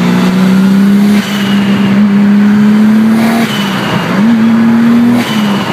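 Turbocharged car engine accelerating in pulls, its pitch rising, with a homemade blow-off valve venting in a short hiss and whistle each time the throttle lifts, about three times.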